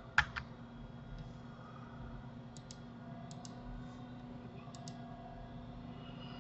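Computer mouse button clicks: two sharper clicks just after the start, then quieter quick double clicks three times through the middle, over a steady low hum.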